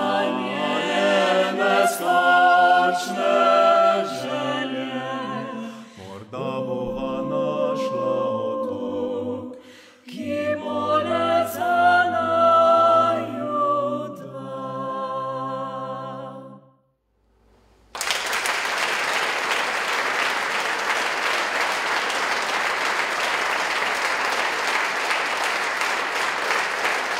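Mixed vocal ensemble singing a cappella, the song's last phrases ending about sixteen seconds in. After a second of silence, the audience breaks into steady applause.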